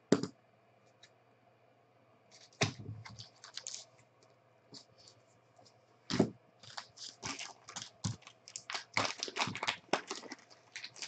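Hard plastic trading-card cases clicking and knocking as they are handled and set down, a few separate strokes. From about seven seconds in comes a fast run of crinkling and tearing as black plastic wrapping is pulled off a cased card.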